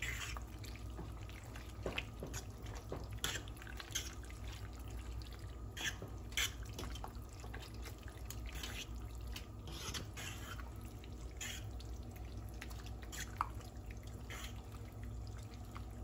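Penne in a thick, creamy cheese sauce being stirred in a nonstick pan: irregular wet squelches and smacks with now and then a light click of the utensil, over a low steady hum.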